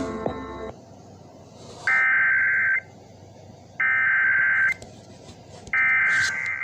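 Emergency Alert System SAME header: three identical bursts of digital data tone, each just under a second long and about a second apart, marking the start of an alert. A few notes of commercial music cut off abruptly before the first burst.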